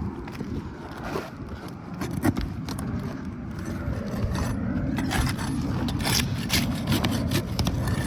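A pry bar scraping and clicking under asphalt shingles as sealed-down shingles are worked loose and lifted, with irregular scrapes and sharp clicks over a low rumble.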